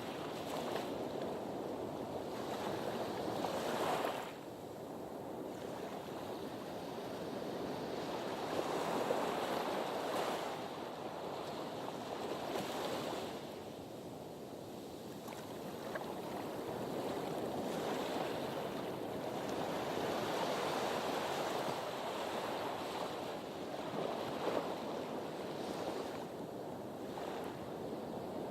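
Sea waves washing in: a steady rush of surf that swells and eases every few seconds.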